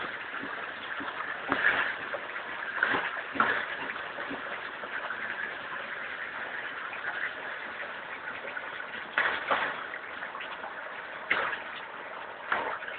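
Water running from a newly installed tub spout into a bathtub: a steady splashing stream, with a few brief sharp knocks scattered through it.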